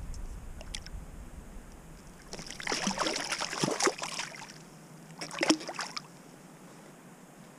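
A hooked trout splashing at the water's surface as it is drawn in to hand: a longer burst of splashing about two and a half seconds in, then a short one about five seconds in.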